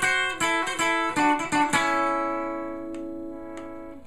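Electric Telecaster-style guitar with Fender '62 reissue pickups, played with a pick: a quick run of single picked notes, then a last note or chord about two seconds in that rings out and slowly fades.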